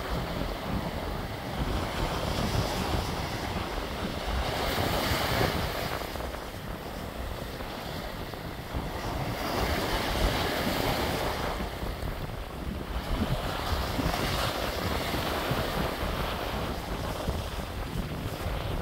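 Sea waves washing onto a rocky shore, swelling and ebbing in several surges, with wind buffeting the microphone.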